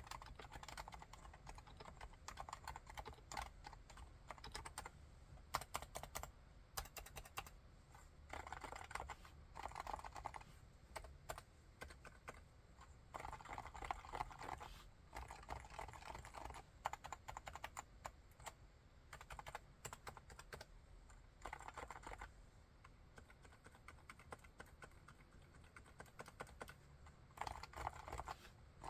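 Typing on a Leopold FC660C keyboard with silenced Topre electrostatic capacitive switches: quiet, soft keystrokes in a continuous run, with several quicker flurries.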